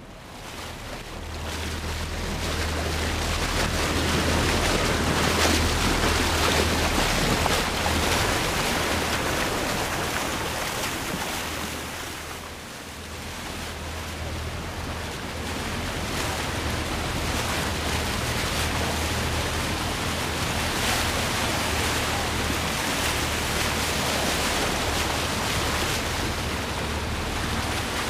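Wind buffeting the microphone of a pole-mounted action camera, over water rushing and splashing along a moving sailboat's hull. It builds up during the first few seconds, dips briefly about halfway, then continues steadily.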